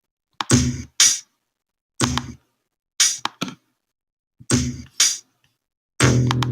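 Sampled drum hits from a Maschine MK2 drum kit playing a sparse kick-and-snare pattern, single and double hits about once a second with silence between. Near the end a sustained bass note comes in under the drums.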